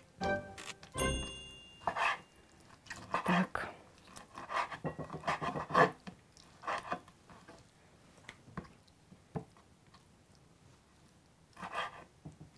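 Kitchen knife chopping hare hearts on a wooden cutting board: irregular knocks of the blade on the board in short clusters, thinning out with a pause of about two seconds before a last few near the end. A brief ringing clink about a second in.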